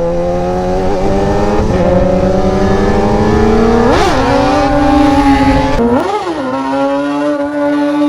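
Sport motorcycle engine accelerating hard as the bike pulls away for a wheelie. The pitch climbs steadily, jumps up and drops back about four seconds in and again about six seconds in, like quick gear changes, then holds steady.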